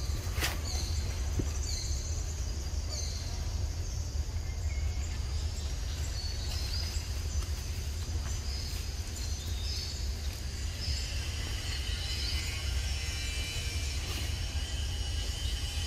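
Outdoor ambience: a steady low rumble with short, high chirping calls repeating throughout, and a thin high-pitched buzz joining in about eleven seconds in.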